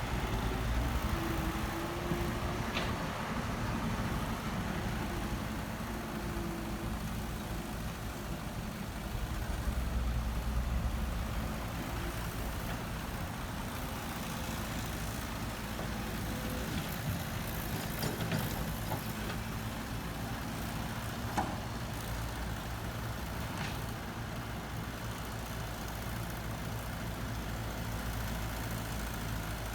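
Heavy equipment diesel engine running steadily, swelling louder a couple of times, with a few sharp knocks.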